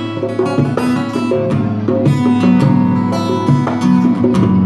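Acoustic guitar strummed with a djembe hand drum keeping the beat: a live acoustic trio playing an instrumental passage.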